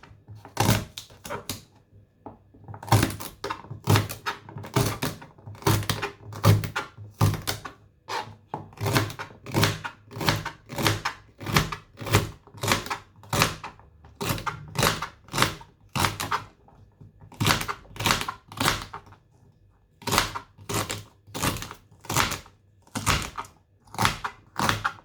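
A knife slicing fresh celery sticks on a chopping board: crisp chops in a steady rhythm of about two to three strokes a second, with a couple of brief pauses.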